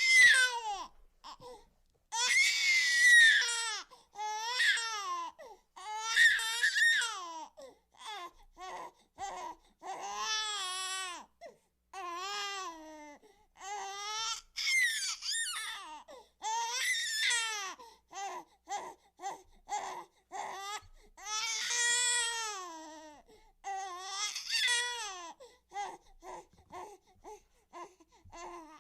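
A baby crying: long wailing cries that rise and fall in pitch, with short, choppy sobbing cries and brief breaths between them.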